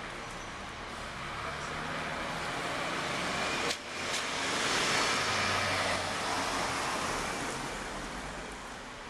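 Road traffic: a car passing on a wet road, its tyre hiss swelling to a peak about five seconds in and then fading away.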